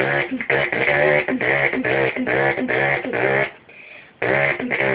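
A boy imitating a scooter engine with his voice: a rhythmic run of buzzing "brr" pulses, about three a second, with a short break after three and a half seconds before it starts again.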